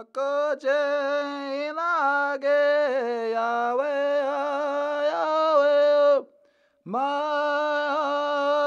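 A man singing an unaccompanied Iowa tribal chant in long held notes. He breaks off about six seconds in and begins a new phrase about a second later.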